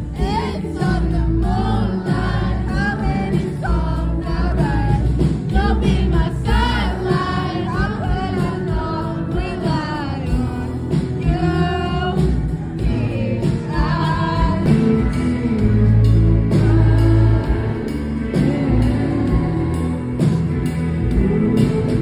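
Live indie rock band playing in concert: a male singer over electric guitar, bass and drums. The singing stops about halfway through, leaving the band playing on.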